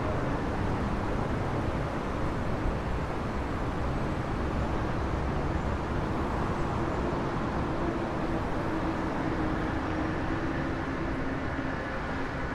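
Steady roar of heavy road traffic on a busy city street beside an expressway, with a vehicle engine's hum coming through for several seconds in the middle.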